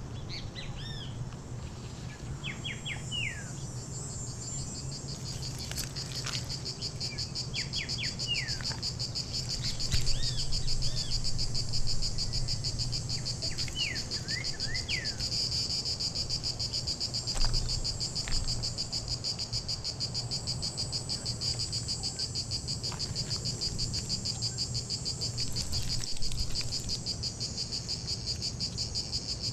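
A steady, high-pitched insect chorus trills on and grows louder after the first few seconds. Short bird chirps come in quick clusters through the first half.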